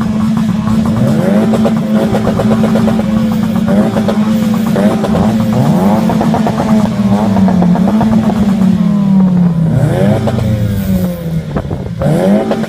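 Toyota Yaris T Sport's 1.5 VVT-i four-cylinder engine with a custom exhaust, revved again and again and held on the rev limiter, its note rising quickly to the same ceiling and stuttering there before dropping back.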